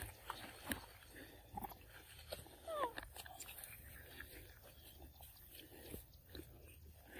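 Macaques eating mango from a hand: faint chewing and smacking with scattered clicks, and one short squeak falling in pitch from a monkey about three seconds in.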